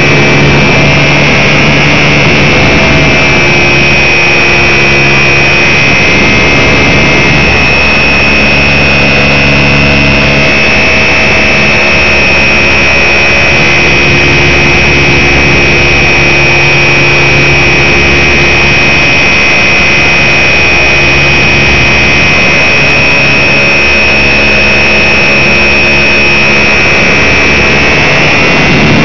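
RC Super Cub model plane's motor and propeller running steadily, heard very loud from a camera riding on the plane: a constant high whine over rushing noise, with a lower hum that fades in and out.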